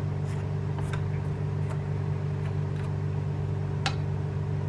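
Steady low hum of a kitchen fan, with a few faint clicks of wooden chopsticks against the pan as glass noodles are lifted out.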